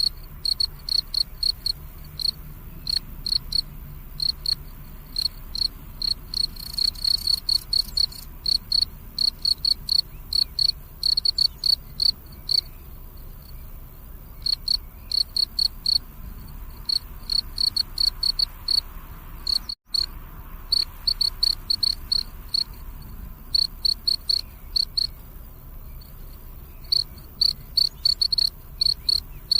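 Crickets chirping at night: high, rapid pulsed trills that come in runs broken by short pauses. The sound drops out for a split second about two-thirds of the way through.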